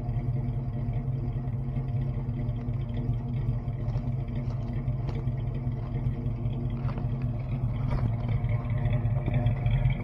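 1978 Chevrolet pickup's engine idling steadily with a low, even exhaust rumble, a little louder near the end.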